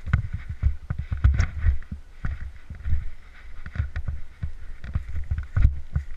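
Irregular low thumps and knocks, a few a second, with short clicks among them: movement and handling noise, as from a body-worn camera carried through the game.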